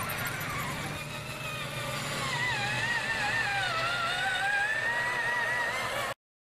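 Electric motor and gear whine of RC scale crawler trucks, rising and falling in pitch as the throttle changes, over a steady low hum. It cuts off suddenly near the end.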